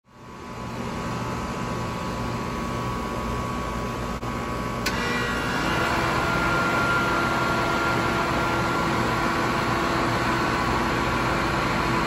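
1987 Carrier Round One (38EN) central air-conditioner condensing unit with a six-blade fan starting up: a steady mechanical hum, then a sharp click about five seconds in as it kicks on, and a new hum rising briefly in pitch before settling as its fan and compressor come up to speed and run steadily.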